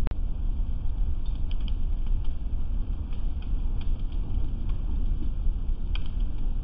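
Boat fire burning, heard as scattered small crackles and pops over a steady low rumble of wind on a surveillance camera's microphone. A sharp click comes right at the start.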